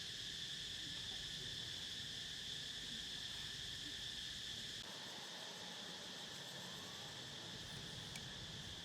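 Steady, high-pitched insect chorus droning without a break, with a low background rumble that drops away about five seconds in.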